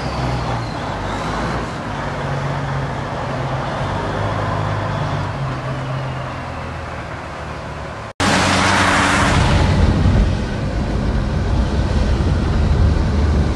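A semi tractor's diesel engine running steadily as the truck pulls away on snow. After a sudden cut about eight seconds in comes louder road and tyre-spray noise from inside a car driving on a wet highway.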